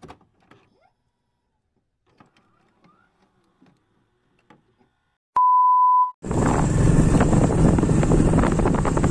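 Faint glitchy ticks from an intro animation, then a click and a steady electronic beep for under a second. About six seconds in, loud wind noise on the microphone takes over.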